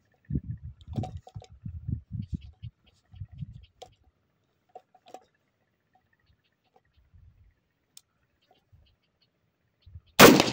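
Low muffled bumps on the microphone for the first few seconds, then a single loud 12-gauge shotgun shot about ten seconds in, followed by a brief metallic ring.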